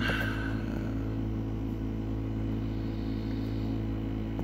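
A steady low hum of several even tones that does not change, with no distinct events on top of it.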